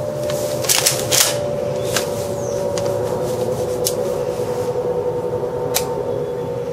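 Plastic pump-action of a Double Eagle tri-shot spring airsoft shotgun being worked and handled: a quick cluster of sharp clacks about a second in, a few lighter clicks, and one sharp snap near the end. A steady hum runs underneath.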